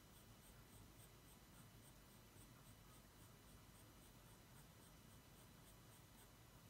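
Faint scratching of a coloured pencil shading on drawing paper, in short, quick, even strokes about four a second.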